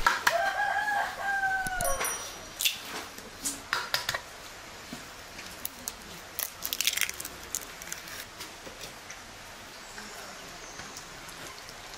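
A rooster crows once, a call of about two seconds that drops in pitch at the end. Then comes a run of sharp clicks and taps as eggs are broken into flour in a metal bowl and mixed in by hand.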